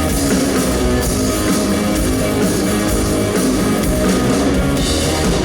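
Live rock band playing the instrumental intro of a song, with guitar and drum kit.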